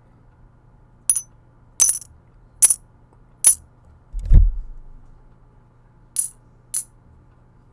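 Six 90%-silver US quarters dropped one at a time, each landing with a short, bright, high ring, four in quick succession and two more near the end. A dull low thump comes about midway, the loudest sound.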